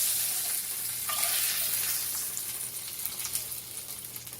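Breaded cube steaks frying in hot shortening in a cast iron skillet: a steady sizzle with fine crackles that slowly dies down.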